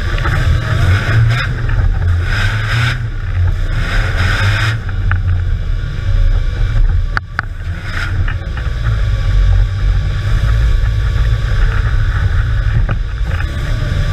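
Off-road trial vehicle's engine running, heard from inside its cabin, with a rushing noise over the first five seconds and a few sharp knocks about seven seconds in.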